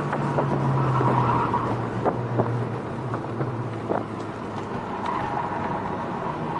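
SEAT León Cupra's turbocharged four-cylinder engine heard from inside the cabin under way. Its steady drone sinks slightly in pitch over the first few seconds and then holds, over road and wind noise with a few light knocks.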